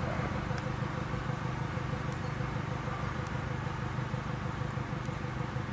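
Kubota DC-105X rice combine harvester running while cutting rice: its diesel engine and threshing machinery give a steady, even hum with a few faint ticks.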